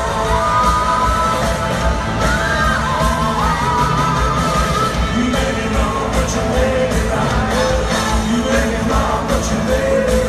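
Live rock band playing a driving up-tempo song with a lead vocal and a steady drum beat, heard through audience recordings in a large hall.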